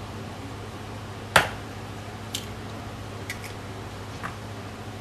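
An egg cracked on the rim of a bowl: one sharp knock about a second in, then a few faint clicks as the shell is pulled apart.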